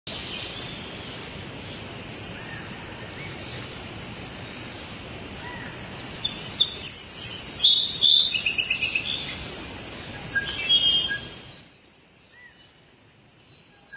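Forest ambience: a steady hiss with scattered bird calls, loudest in a stretch of rapid, repeated high chirping about six to nine seconds in, then fading out near the end.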